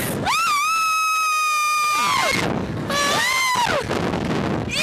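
Girls screaming on a Slingshot reverse-bungee ride: one long, high, steady scream for about two seconds, then a shorter scream that rises and falls.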